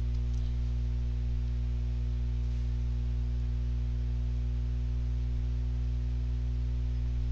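Steady low electrical mains hum with its overtones, a constant buzz under faint hiss, picked up by the recording chain.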